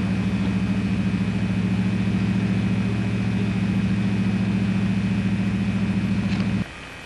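An engine idling steadily with a low, even pulse, stopping abruptly near the end.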